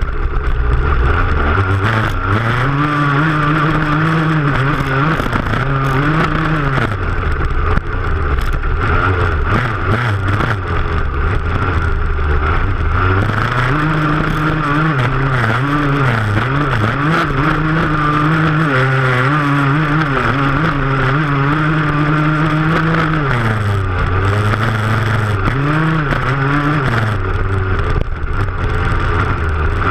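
Engine of a stubble-field cross racer under hard throttle, repeatedly revving up and dropping back as it shifts gear and slows for turns. A steady rush of wind and rough knocks from the bumpy field ride along with it.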